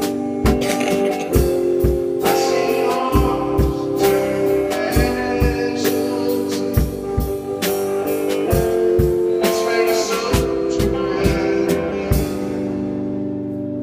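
Blues-style band music: a drum kit keeps a steady beat under held guitar chords, with a singing voice. The drums drop out near the end, leaving the chord ringing, then come back in.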